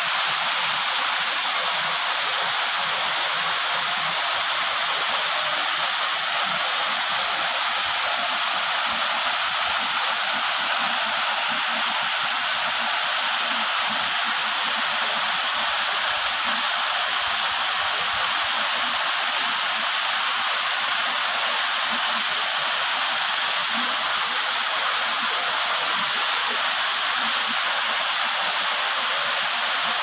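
Waterfall: the steady, hissy rush of falling water.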